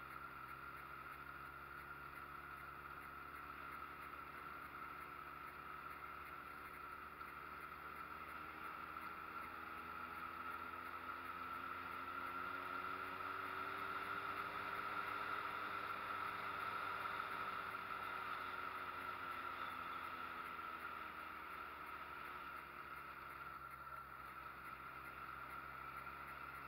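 Street motorcycle's engine running steadily under way, its note rising gently towards the middle and easing off again, with a steady high-pitched whine over it.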